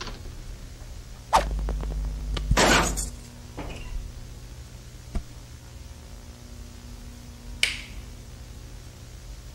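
Cartoon sound effects: a sudden hit with a low rumble under it, then a loud whoosh, a single sharp click a couple of seconds later and a short swish near the end, over a low steady hum.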